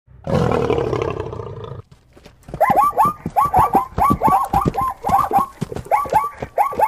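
A big cat's roar lasting about a second and a half, then after a short gap a fast run of short, rising-then-falling animal calls, several a second.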